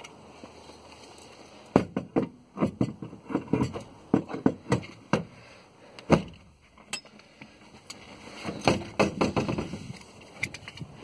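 A Cherokee Six passenger seat being set in and snapped into its floor fittings: irregular knocks, clicks and clunks starting about two seconds in, with rustling as the seat and upholstery are moved.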